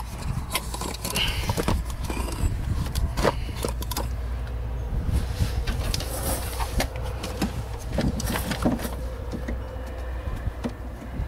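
Scattered clicks, knocks and rustles of someone handling things and moving about in a pickup truck's cab footwell, over a steady low rumble.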